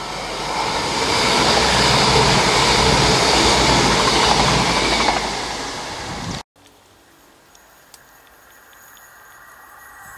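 Passenger train passing at speed close below: a rising rush of wheels on rail and air that peaks for a few seconds, fades, and cuts off abruptly about six seconds in. A much quieter steady outdoor background follows.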